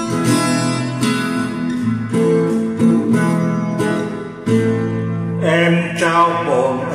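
Acoustic guitar playing a song's introduction; about five and a half seconds in, a voice starts singing the first Vietnamese line.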